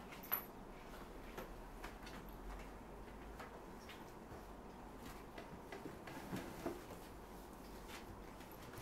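Faint, scattered clicks and light knocks of household handling, with one sharper click about a third of a second in, over quiet room noise.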